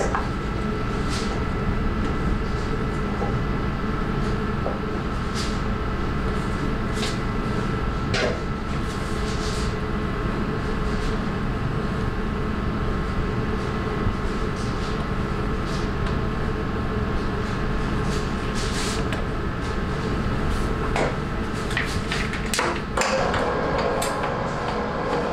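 Commercial planetary stand mixer running steadily, its wire whisk beating batter in a stainless steel bowl, a constant motor hum with a faint steady whine. Occasional light clicks and knocks of metal bowls and utensils.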